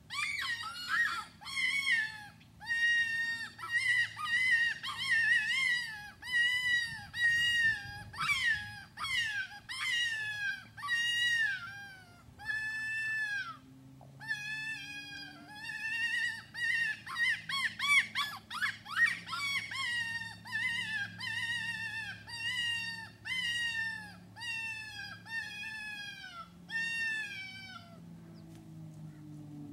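Predator call sounding a long run of short, high distress cries to lure coyotes, about two cries a second, each arching and then falling in pitch. A brief pause comes about halfway through before the cries resume.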